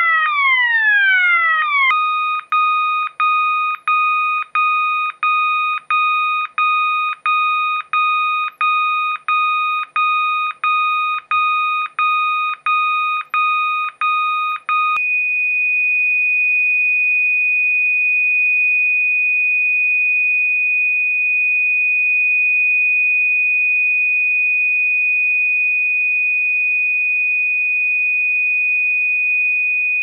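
System Sensor MASS fire alarm sounder cycling through its selectable tones. A repeating falling sweep gives way about two seconds in to a beeping tone at about one and a half beeps a second. Around fifteen seconds in it switches to a steady, higher-pitched continuous tone.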